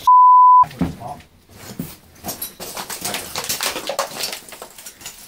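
A censor bleep: one steady high-pitched beep about half a second long at the very start, the loudest sound here. Then scattered clattering and rustling of rubble and glass bottles being trodden on and knocked about.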